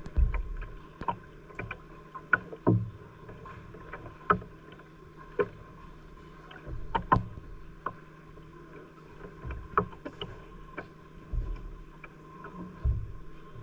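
Water slapping and knocking against the hull of a small wooden fishing boat rocking in the wake of a passing speedboat: irregular hollow knocks and low thumps every second or so, over a faint steady engine drone.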